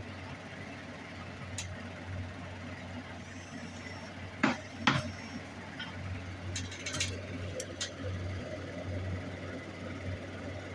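Silver pieces and hand tools handled on a jeweler's bench: two sharp knocks close together about halfway through, then a few lighter metal clicks, over a steady low hum.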